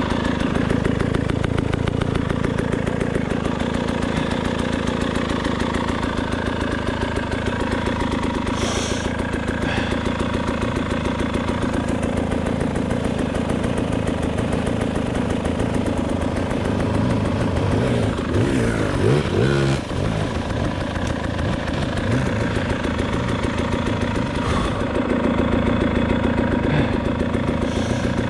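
KTM 300 XC-W two-stroke enduro bike engine running at low revs, mostly steady. The revs waver briefly about eighteen seconds in.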